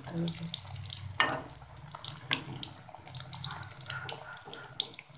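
Kachoris shallow-frying in hot oil in a kadai: a steady sizzle with small crackles, while a perforated steel skimmer turns them over, scraping against the pan a couple of times.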